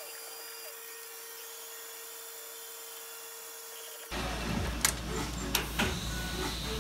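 Milling machine cutting copper bolster stock: a faint steady tone over a hiss, then about four seconds in a sudden jump to a louder machine hum with a few sharp clicks.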